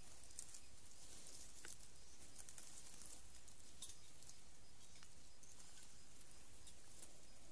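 Faint outdoor background: a steady high hiss with a few scattered light ticks and rustles.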